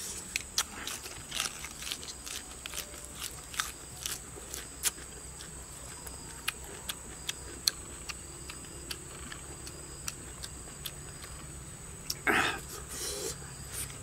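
Close-up mouth sounds of a man eating raw food with his fingers: scattered crisp clicks of chewing and lip smacks, thick in the first few seconds and sparser later, with a short vocal sound near the end.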